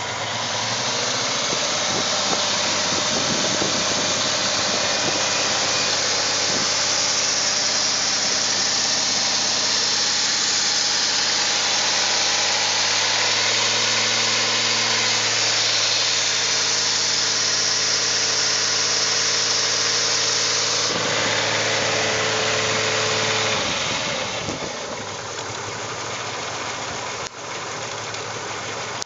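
2001 VW Jetta's 2.8-litre 12-valve VR6 engine, which has misfiring cylinders, held at raised, steady revs for about twenty seconds, then dropping back to a quieter idle near the end.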